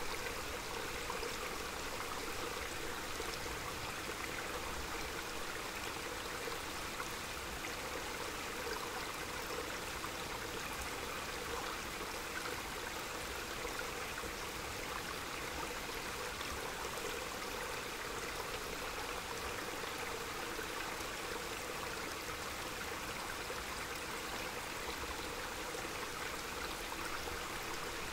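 Small mountain stream flowing steadily, an even rush of running water with no break or change.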